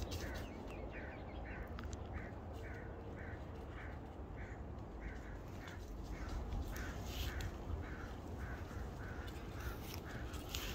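An animal's short calls, repeated evenly about twice a second, over a low steady rumble.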